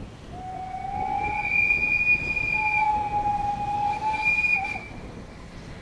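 A train whistle sounding one long blast of about four and a half seconds, with a slight rise in pitch as it opens, then cutting off, over the low rumble of the train.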